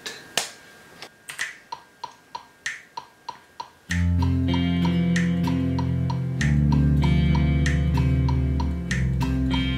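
Metronome click ticking about three times a second. About four seconds in, a sustained F7 chord with a low bass note joins it, and the bass steps down twice (to D, then C) while the click carries on.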